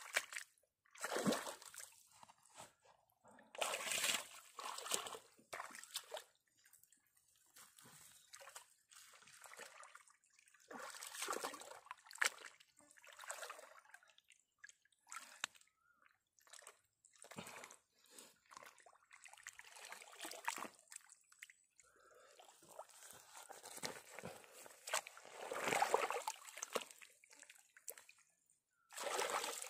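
Shallow muddy pond water sloshing and splashing in irregular bursts as a person wades and works the mud with hands and feet.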